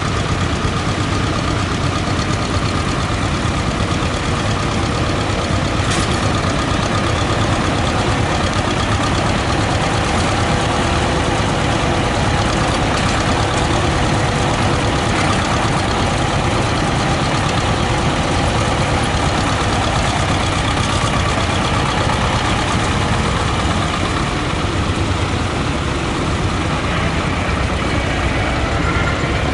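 Vladimirets T-25 tractor's two-cylinder air-cooled diesel running steadily while pulling a mounted plow through the soil. Near the end, as the tractor turns with the plow raised, the engine note changes.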